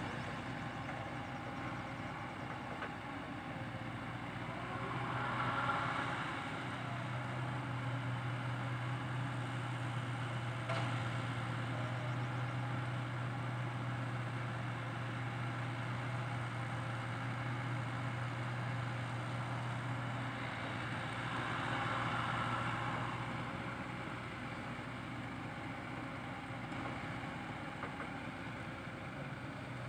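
Diesel engines of a Komatsu PC80 excavator and the dump truck it is loading, running as a steady low drone. The drone swells twice, about five seconds in and again near twenty-two seconds, as the excavator works.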